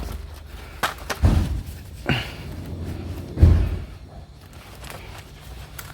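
Four dull knocks and thuds from a discarded blind being handled and knocked about while scrap is pulled from it, the loudest about three and a half seconds in.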